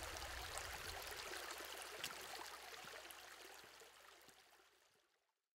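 A shallow, rocky creek running and trickling over stones, fading out steadily over about four seconds.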